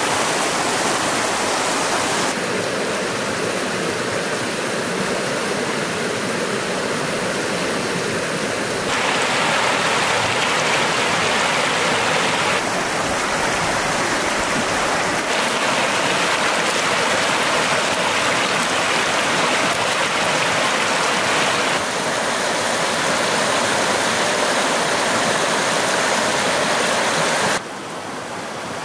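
Fast stream rushing over rocks: a steady, loud rush of water that shifts abruptly in tone several times, turning a little quieter near the end.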